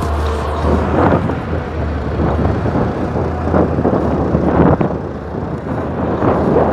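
Hyundai Robex 480LC-9S crawler excavator's diesel engine running with a steady low hum, with irregular rough rushes of noise over it every second or so as the machine works.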